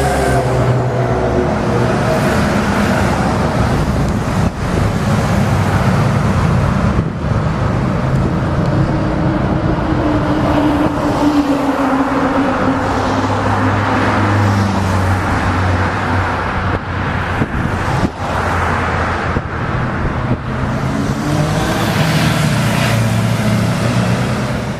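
A convoy of heavy army trucks, a fire engine and police motorcycles driving past close by. The engines swell and fade as each vehicle passes, with a falling engine note about halfway through and a rising one near the end.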